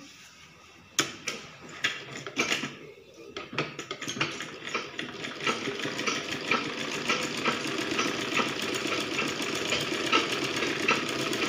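Domestic straight-stitch sewing machine stitching fabric. A few short starts and clicks in the first seconds, then a steady, fast run of needle strokes from about four seconds in.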